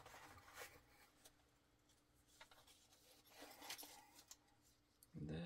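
Faint rustling of small plastic parts bags and light clicks of tiny hardware while a hand rummages through a box of knife screws and bits. A man's voice starts just before the end.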